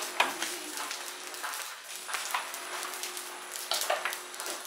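Burning rubbish pile crackling and popping, with irregular sharp cracks over a steady hiss.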